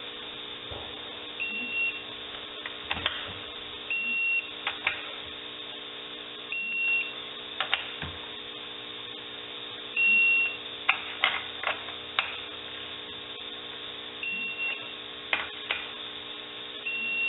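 Torque wrench beeping each time a transmission valve body bolt reaches 100 inch-pounds: six short high beeps a few seconds apart, one longer near the middle, with sharp clicks of the wrench and socket between them.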